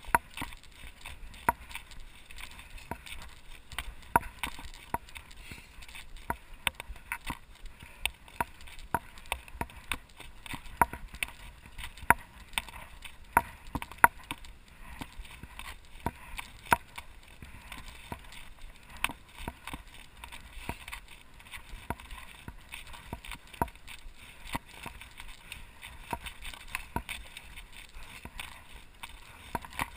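Mountain bike ridden over a rough dirt and gravel track: tyres crunching on the loose ground, with frequent sharp rattles and knocks from the bike jolting over bumps, several a second and irregular.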